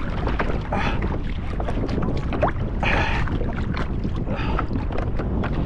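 Wind buffeting the microphone on an anchored fishing kayak, with water sloshing against the hull in a few short bursts.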